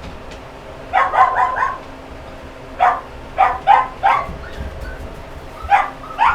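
Brittany dog giving a series of short, high yelps in quick clusters, about nine in all, loudest in the middle.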